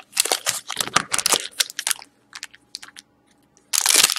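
Foil wrappers of hockey card packs crinkling as a handful of packs is shuffled and fanned in the hands, thinning to a few scattered crackles, then a louder burst of crinkling near the end as one pack is gripped at its top edge.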